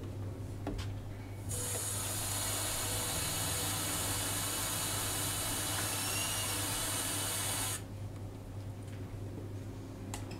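Water running from a tap into the coffee machine's removable water reservoir to refill it: a steady hiss that starts suddenly about a second and a half in and is shut off after about six seconds.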